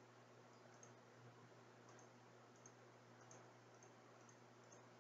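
Near silence with a faint steady hum and a few scattered, faint computer mouse clicks: digits being entered on an on-screen calculator.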